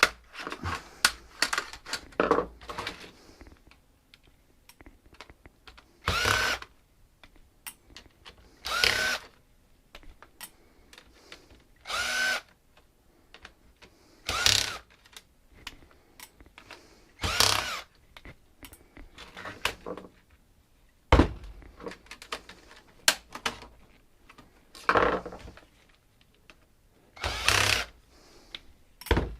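Cordless drill/driver run in about seven short bursts, the motor's pitch rising and falling each time, as screws are backed out of a docking station's casing. Light clicks and clatter of handling the parts come between the runs, with one sharp knock about two-thirds of the way through.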